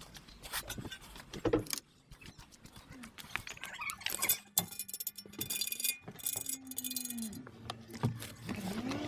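Assorted clicks, taps and rattles of hands handling parts and tools, in quick irregular succession, with a faint wavering hum near the end.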